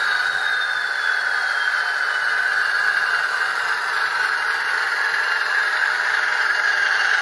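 Sound decoder of an HO scale model ALCO S4 playing its ALCO 539T turbocharged diesel prime mover, running steadily through the model's small speaker. A faint turbo whine falls slowly in pitch over the first few seconds as the engine winds back down.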